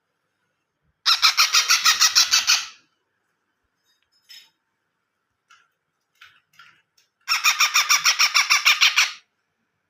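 A month-old parrot chick calling in two loud bouts of rapid, evenly pulsed rasping squawks, each about two seconds long, with a few short soft chirps between them.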